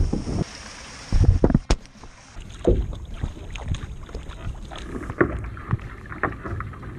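Wind and rushing water from surfing a wave, cutting off about half a second in. A few hard knocks follow about a second in, then a kayak paddle dipping into calm water and dripping, about twice a second.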